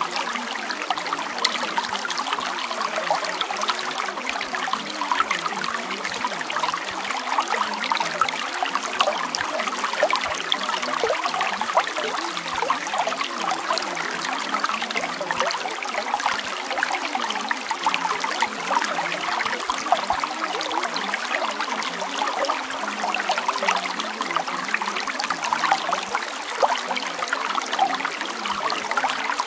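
Steady trickling of running water, an even, unchanging stream sound.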